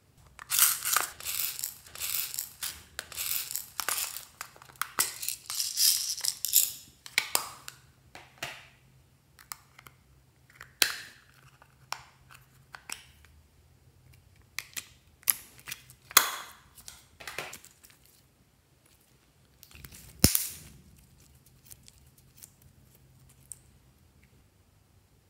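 Crackling and clicking as oil pastels are pulled from a plastic tray and cut into pieces with scissors. A dense run of crackling in the first seven seconds gives way to scattered snips and clicks, with one sharp knock about twenty seconds in.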